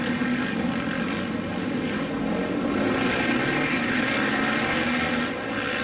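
Several supermoto motorcycle engines running as the bikes race around the track, blending into a steady drone of overlapping engine notes.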